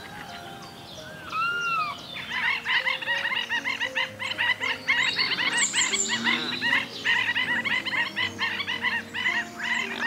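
A dense chorus of short, rapidly repeated chirping calls from marsh animals, setting in about two seconds in, over sustained low notes of background music. A couple of single arched calls come just before the chorus.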